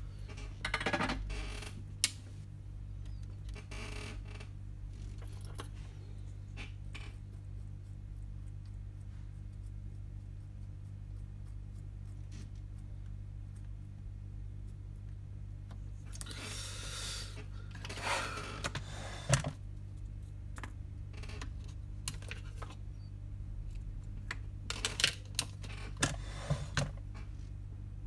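Scattered light clicks and short rustles from hands handling small tools and an iPhone 7 logic board on a work mat, over a steady low electrical hum.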